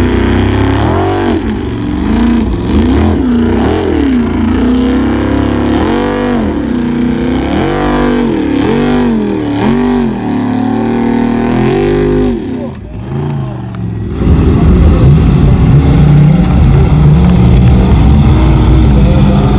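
Formula Offroad race buggy's engine revving hard up and down again and again, about once a second. After a short dip about two-thirds of the way in, it runs loud and steady at high revs.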